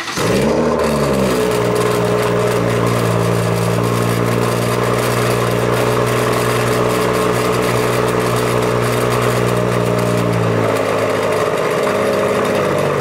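BMW M140i's 3.0-litre turbocharged straight-six on a cold start, heard at the tailpipes: the start-up flare falls away within the first second into a fast, steady cold idle that drops a little lower near the end. Through it runs a rattle from the exhaust flap valves in the rear silencer, loose because the valve actuator clip has snapped off.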